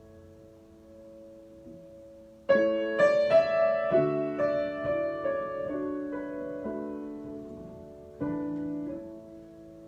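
Piano improvisation: a soft chord dies away, then a loud chord is struck about two and a half seconds in, followed by a string of single notes over the sustained harmony. Another chord comes near the end and is left to ring.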